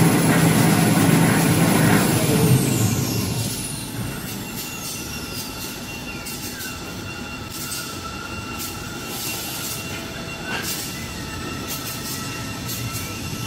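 Toilet paper and kitchen towel rewinding and laminating line running, a steady mechanical din with scattered clicks. A high drive whine glides down in pitch over a few seconds, holds steady, and starts to rise again near the end as the drive speed changes.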